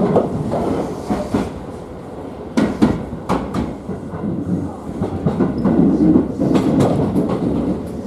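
Commuter train running, heard from inside the car: a steady running rumble, with the wheels clicking over rail joints in quick pairs of clacks.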